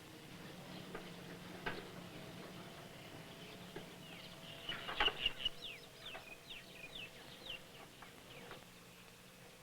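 A bird calling: a quick run of short, falling chirps about halfway through, over a faint steady hum.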